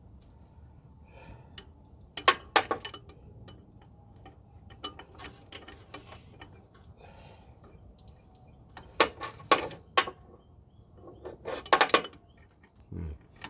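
Metal hand tools and sockets clinking and rattling against each other in three short clusters of clinks, with lighter ticks between.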